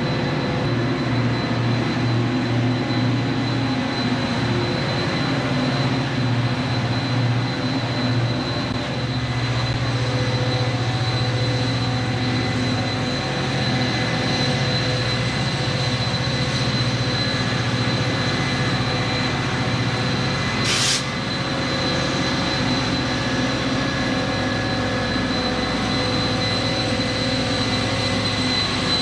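Amtrak passenger train passing close by at street level: the steady rumble of the passenger cars, then a diesel locomotive, likely an EMD F40PH, running as it goes by. A brief high squeal comes about two-thirds of the way through.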